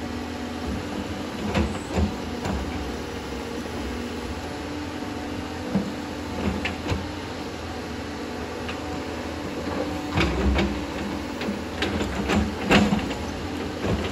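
Doosan excavator's diesel engine running steadily, with scattered knocks and clanks of rock and metal that come thicker from about ten seconds in.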